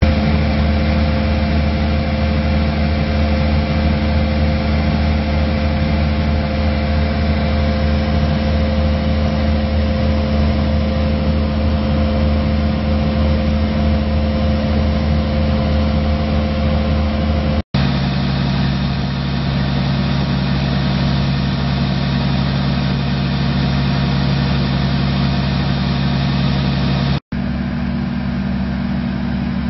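Diesel engine of a 2011 Casagrande B105NG hydraulic piling drill rig running steadily at about 1500 rpm. The sound cuts out for an instant twice, with a slightly different tone after each break.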